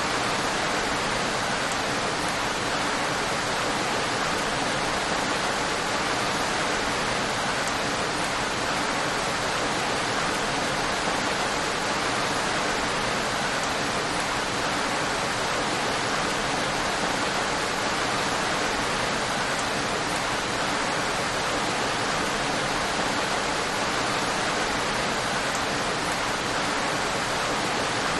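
Steady heavy rain, an even unbroken hiss of falling rain with no distinct drops or thunder.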